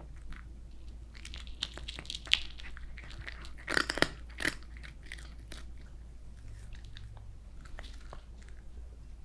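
A cat crunching and chewing crisp dried smelt: irregular crisp crunches, with the loudest burst of crunching about four seconds in.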